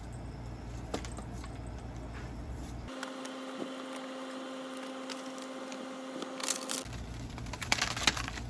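Iris Ohyama portable air conditioner running with a steady low hum. About three seconds in the hum changes to a higher steady tone for about four seconds, with scattered small clicks and a cluster of crackling clicks near the end.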